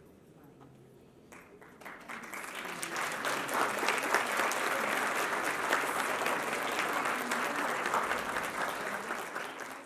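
Audience applauding: a few scattered claps at first, then the applause swells about two seconds in and holds steady.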